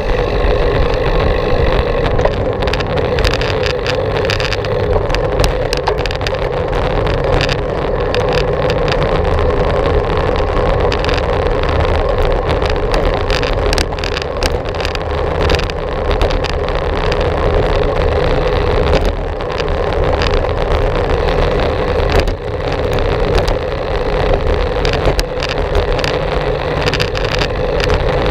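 Steady wind rush and rolling noise from a bicycle in motion, picked up by a GoPro Hero 4 action camera's microphone, with a low rumble and an even hum throughout.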